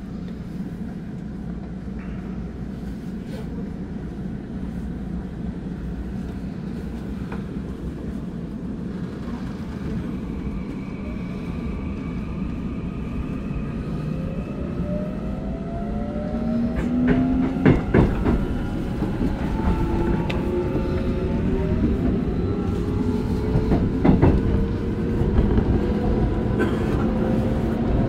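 Korail Line 1 electric multiple unit pulling away and accelerating, heard from inside the car. A low running rumble builds steadily, and from about halfway through the traction drive's whine climbs in several rising tones. Sharp wheel clacks over rail joints come twice, about two-thirds of the way in and again near the end.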